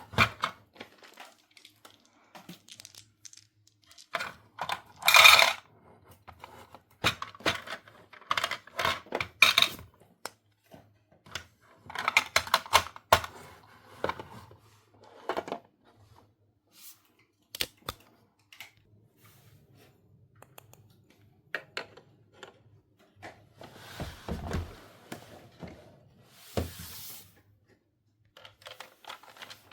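Small plastic toy pieces and packaging handled close to the microphone: scattered light clicks and clatters as pieces are picked up and set down, with short bursts of rustling and crinkling.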